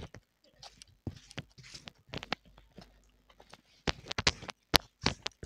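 A person eating soft fena bhat with mashed-vegetable bhorta: wet chewing and lip smacks in an irregular string of sharp clicks and smacks, busiest about four seconds in.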